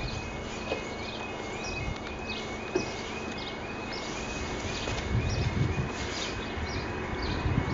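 Level crossing audible warning, a two-tone warbling alarm repeating about three times a second as the barriers come down, with birds chirping.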